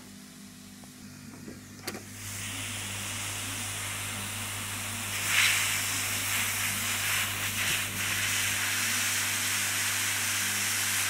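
Hot-air plastic welding gun blowing with a steady hiss that starts about two seconds in, heating a plastic rod in a hole of a wheel-arch liner to melt it into a rivet.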